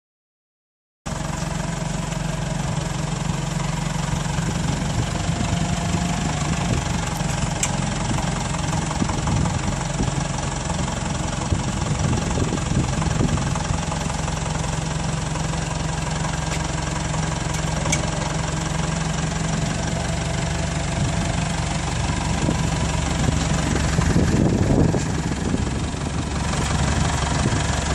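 Diesel engine of a CompAir C-76 portable air compressor running at a steady speed, with a slightly louder rumble for a moment near the end.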